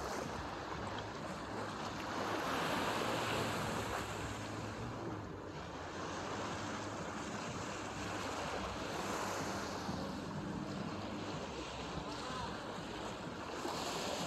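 Seaside ambience: wind on the microphone and small waves washing onto the sand, rising and falling every few seconds, with a faint steady low hum underneath.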